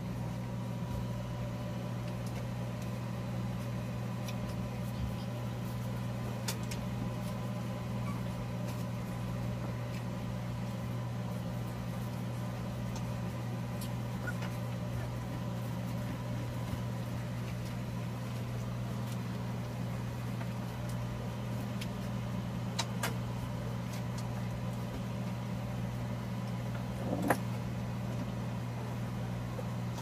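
Electric fan motor running with a steady low hum, broken only by a few faint clicks and one sharper click near the end.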